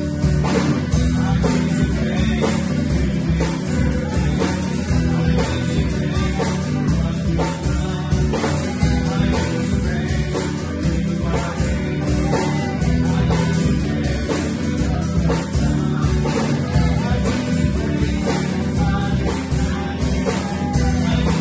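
A small live band playing a worship song: guitar and bass guitar with a drum kit keeping a steady beat.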